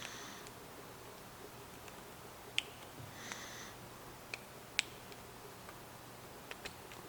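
Small, sharp metallic clicks, about five of them scattered irregularly, from a homemade lock pick and tension wrench working the pin stack of a trailer hitch lock. Two short breathy hisses come near the start and about three seconds in.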